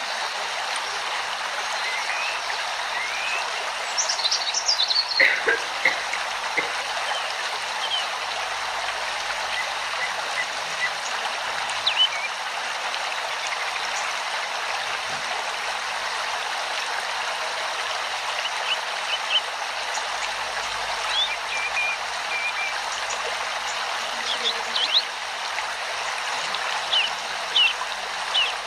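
A steady rushing like running water, with short high bird chirps now and then, clustered near the start and near the end.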